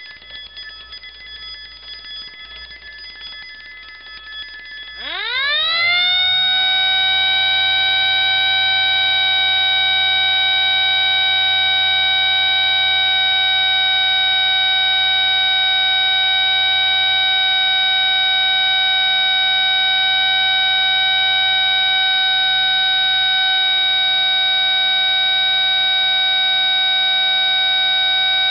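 An alarm bell rings steadily for about five seconds, then falls silent as a siren winds up, rising in pitch over a second or two, and holds a steady loud tone. A cam wheel switches the homemade alarm between bell and siren, so one sounds while the other is off.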